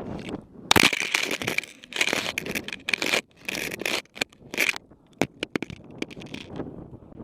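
Skis scraping across hard snow in a run of loud scraping bursts, with a few sharp clacks near the end.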